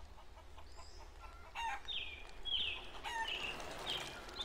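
Chickens calling in a run of short, repeated calls that start about a second and a half in.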